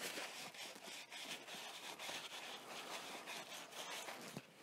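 Blue cleaning paper rubbed and wiped over the zinc-plated steel Tema coupler of a balloon propane cylinder: a faint, continuous scrubbing rustle that pauses briefly near the end.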